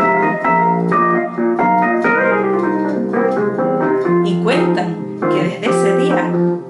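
Electronic keyboard playing a melody over held low notes. In the second half a voice joins in over it.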